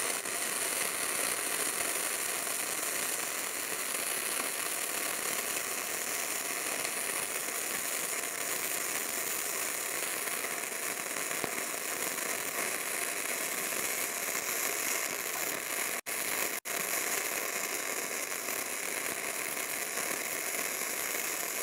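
Gasless flux-core wire-feed welding arc on thin steel sheet: a steady crackling sizzle that drops out briefly twice about 16 seconds in. The welder is set to a little under half power and half wire feed, and the arc is melting in and penetrating well.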